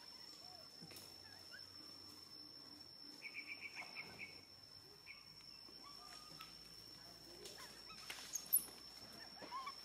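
Faint outdoor background with a steady high-pitched whine. A little over three seconds in there is a quick run of about six chirps, and a few faint squeaks and a tick follow later.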